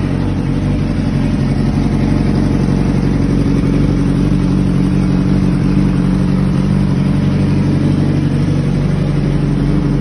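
Yamaha R6 inline-four engine idling steadily, at an even pitch.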